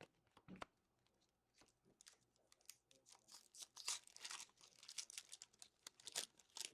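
Trading cards and their foil pack wrapper being handled: faint, irregular scratchy rustling and crinkling as cards are slid against each other, busier in the second half.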